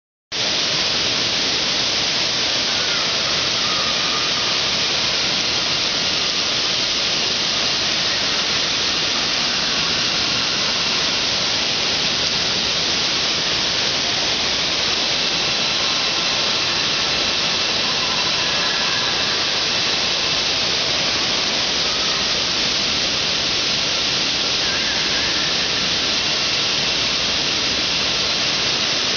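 Steady rushing and splashing water of an indoor waterpark's slides and water play structure, an even hiss with faint voices now and then.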